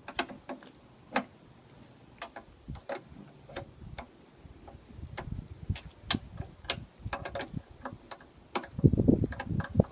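Ratchet wrench clicking in short irregular strokes as a bolt on a lawnmower carburetor is turned, with heavier clattering of tools and metal parts near the end.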